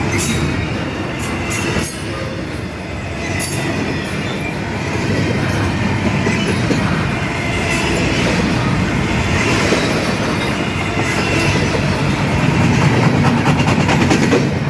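Intermodal container freight train's cars rolling past: a steady rumble of steel wheels on rail with intermittent clicks and a faint wheel squeal.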